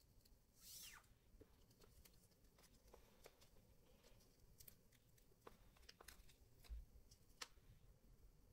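Near silence: quiet room tone with faint scattered clicks and a brief swish about a second in.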